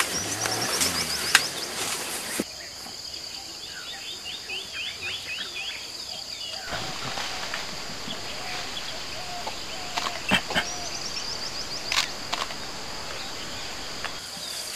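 Tropical mountain forest ambience: a steady high insect drone with birds calling in quick runs of falling chirps, and a few sharp snaps. The background changes abruptly twice, about two and a half and seven seconds in.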